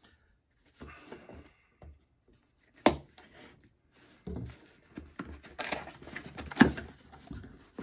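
Cardboard shipping box being opened by hand, its flaps and packing rustling and scraping. There is a sharp knock about three seconds in and a louder one near the end.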